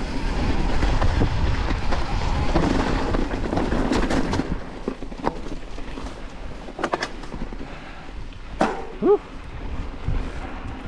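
Santa Cruz Bronson C carbon full-suspension mountain bike rolling down a dirt trail: tyres rumbling over the ground, wind buffeting the microphone, and rattles and clicks from the bike. The rumble eases off a little past halfway, and a sharp click and a short squeak that wavers in pitch come near the end.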